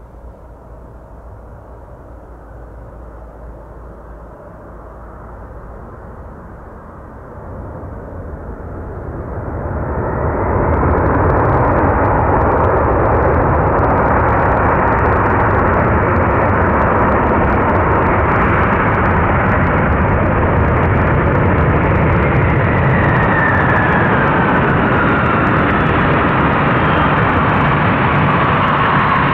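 Boeing 747 jet engines at takeoff power, growing louder as the jet approaches and then a loud, steady roar from about ten seconds in. Near the end a whine falls in pitch as the aircraft passes.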